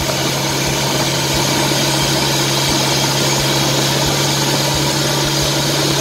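Motorboat engine running steadily under way, a constant low hum with an even rush of noise over it.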